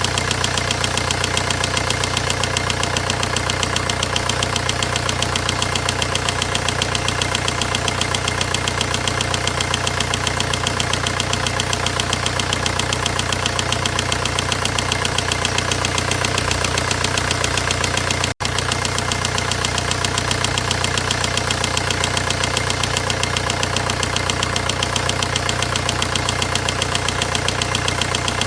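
VW 1.9 diesel engine running steadily with a rapid, even knocking tick: the engine noise being shown as a fault. The sound cuts out for an instant about eighteen seconds in.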